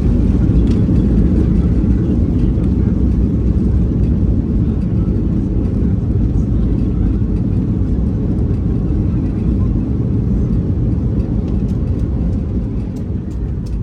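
Steady low rumble of an airliner heard from inside the passenger cabin, engine and air noise with no distinct tones, easing off slightly near the end.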